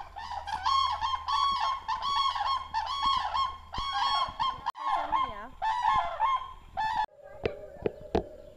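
A flock of large birds honking over and over, many short calls overlapping, until the sound breaks off sharply about seven seconds in.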